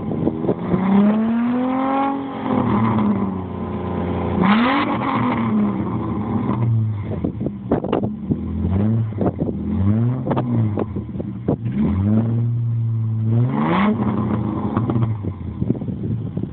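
Holden VY Commodore with a 2.5-inch cat-back sports exhaust being revved repeatedly from idle: a series of short blips of rising and falling pitch, a longer held rev near the end, and sharp pops from the exhaust between revs.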